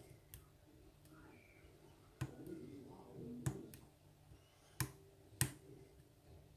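Lock pick and tension wrench working the pins of a pin-tumbler lock: a handful of sharp metallic clicks spaced a second or so apart, with faint scraping between them.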